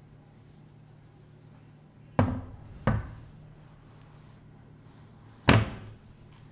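Metal baking sheet set down on a wooden table by an oven-mitted hand: three sharp clunks, two close together about two seconds in and a louder one near the end.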